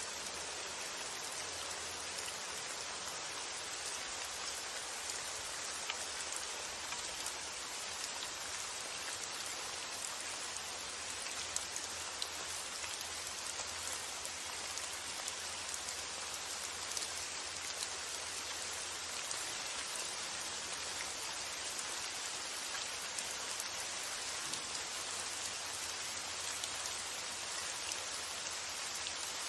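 Steady rain and wind, an even hiss of rainfall with scattered drop ticks and a faint low rumble underneath.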